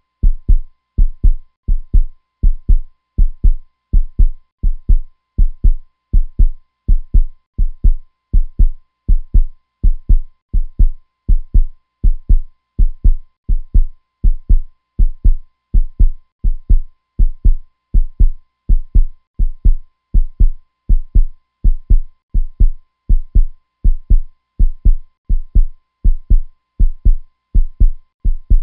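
Heartbeat sound effect: low, paired thumps (lub-dub) repeating at a steady, even pace of roughly one beat a second, with a faint steady hum underneath.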